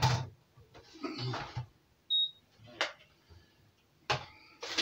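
Digital kitchen scale giving one short, high beep about two seconds in as it is switched on. A couple of sharp knocks follow as a mixing bowl is handled on the counter.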